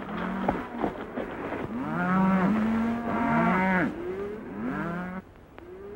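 A herd of cattle on the move, many animals mooing at once in overlapping calls. The calls thin out briefly about five seconds in.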